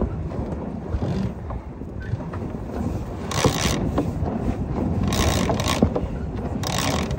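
Sailboat line hauled hand over hand, the rope running through the hands and fittings in three brief rushes about three and a half, five and seven seconds in, over a steady rumble of wind on the microphone.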